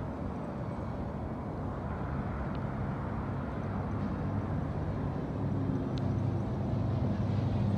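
ZMR 250 racing quadcopter's brushless motors and propellers whirring in flight, the buzz growing gradually louder over the last few seconds.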